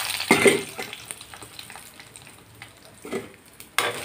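Cashew nuts frying in hot ghee in an aluminium kadai, a quiet sizzle with fine crackles, with louder scraping of a spoon stirring them against the pan shortly after the start and again near the end.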